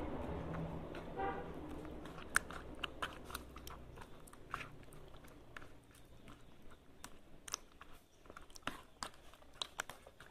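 Soft wet squelching and irregular small clicks of a hand rubbing a garlic-and-salt paste into raw catfish on a plate.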